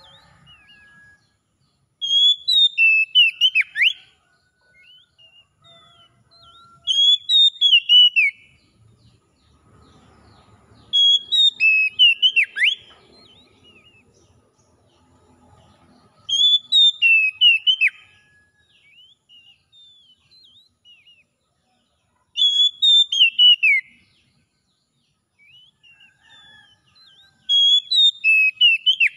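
Oriental magpie-robin singing: a short phrase of loud, clear whistled notes with quick downward slurs, repeated six times about every five seconds.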